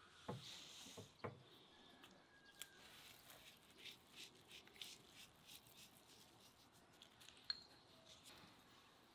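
Salt sprinkled over raw beef chunks and onion in a cauldron: a brief soft patter in the first second, then scattered faint ticks, with one sharper tick near the end.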